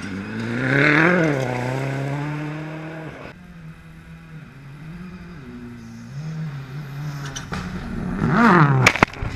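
Ford Fiesta rally car passing at speed on a gravel stage, its engine pitch climbing then falling as it goes by. It is then heard again, the engine rising and dropping through gear changes as it approaches, before a second loud pass through a dirt corner with a run of sharp cracks near the end.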